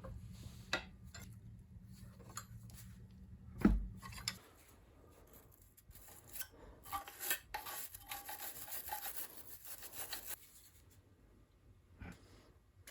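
Wrenches on the mounting bolts of a pressure washer pump: scattered faint metal clicks and scraping, with one louder knock about four seconds in.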